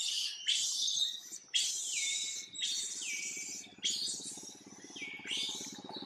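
Young long-tailed macaque crying in distress, calling for its mother: a run of shrill, high screams, each one falling in pitch, repeated about once a second or faster.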